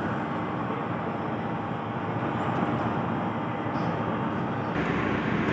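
Steady machinery noise running without a break, a continuous mechanical hum. Near the end it suddenly becomes deeper and heavier.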